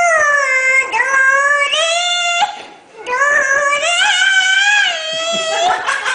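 A small child singing in a high voice: two long, drawn-out sung phrases with sliding notes, broken by a short pause about two and a half seconds in.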